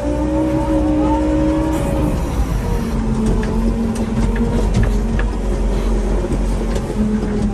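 Farm vehicle engine running under load, its pitch rising and falling as it works, with scattered clicks and knocks.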